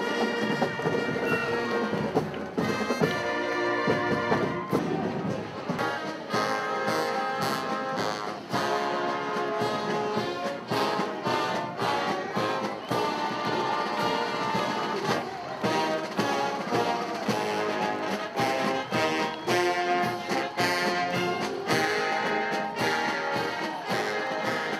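Military marching band playing, brass (trumpets, trombones, sousaphones) over a steady drum beat.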